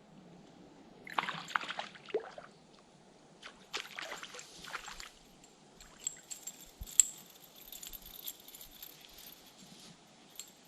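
Water sloshing and splashing in two short bursts, followed by a run of light clicks and ticks.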